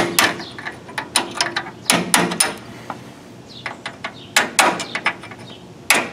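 Hammer blows on a steel punch held against a control arm bolt head, metal on metal with a brief ring, driving the bolt into its mount. The strikes come in short clusters of two to four with pauses between.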